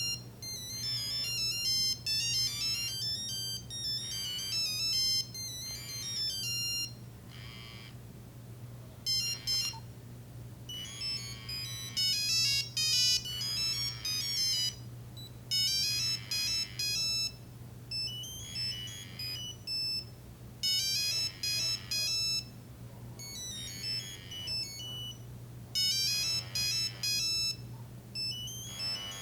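Nokia 3395 ringtone melodies played through the phone's speaker as phrases of electronic beeping notes, with short pauses between phrases. A steady low hum lies underneath.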